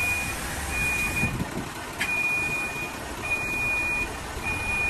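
Isuzu Giga truck's warning beeper sounding a steady high-pitched beep about once every second and a quarter, over the low idle of its 6UZ1 diesel engine. A single sharp click about two seconds in.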